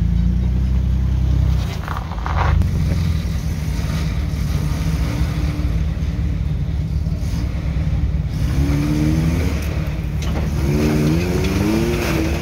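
Off-road engines run steadily on a rock trail. About two-thirds of the way in, and again near the end, an engine revs up in short rising pulls as a lifted Toyota 4Runner crawls over a rocky ledge.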